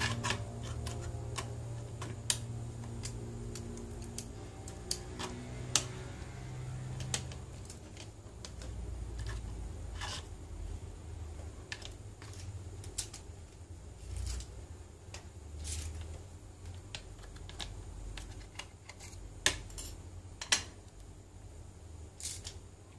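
Irregular small clicks and taps of fingers and small tools handling an opened iPhone 6 and its parts on a workbench, over a low steady hum that fades after the first several seconds.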